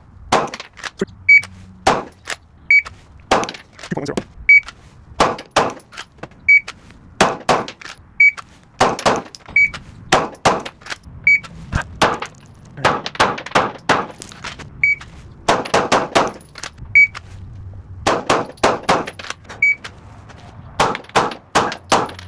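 Glock 17 Gen 6 9mm pistol firing Blazer 115-grain full metal jacket rounds: a long series of shots, some fired one at a time and some in quick strings, with short pauses between them.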